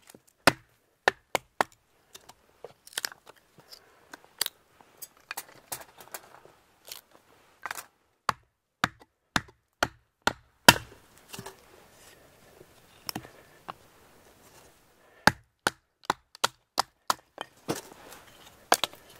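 Knife splitting dry firewood into kindling: an irregular string of sharp cracks and knocks as the wood splits and the pieces are set down.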